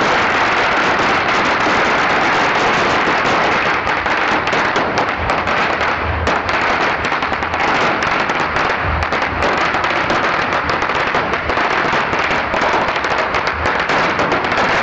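A pagara, a long string of firecrackers, going off in a fast, unbroken crackle of many small bangs.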